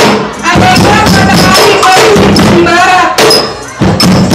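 Live group percussion played by hand and with sticks: fast, loud drum thumps and knocks in a steady beat, with a voice singing a wavering line over it in the first part.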